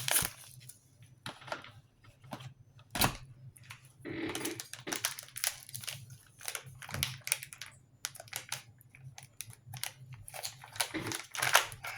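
Plastic MRE packaging being cut open and handled on a table: crinkling and rustling with scattered clicks and knocks, one sharper knock about three seconds in and a longer rustle around four seconds in.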